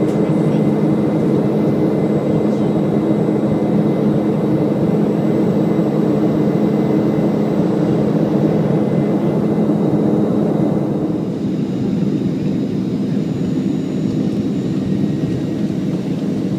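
Cabin noise of a Boeing 737-500 airliner in descent, heard from a window seat: a steady rush of air and jet engines, with a low hum from its CFM56-3 turbofans. About two-thirds of the way through, the noise drops a little and the hum fades.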